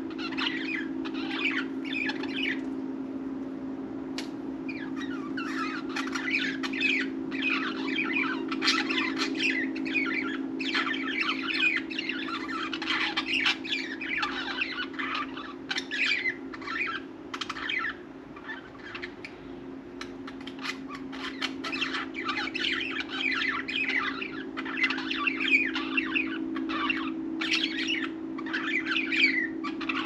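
Budgerigars chattering and warbling in rapid, dense chirps, the contented chatter of pet budgies, with brief lulls about three seconds in and again around eighteen seconds. A steady low hum runs underneath.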